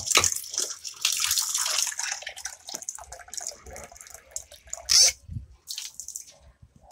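Water splashing irregularly, busiest at first and then in scattered splashes, with one louder splash about five seconds in.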